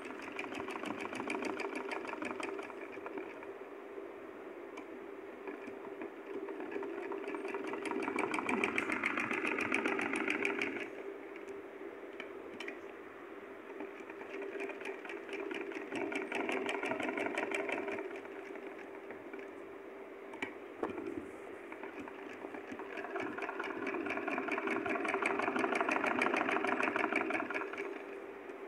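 Sewing machine stitching with a fast, even needle clatter over a steady hum. It runs in spells, growing louder for a few seconds at a time, three times.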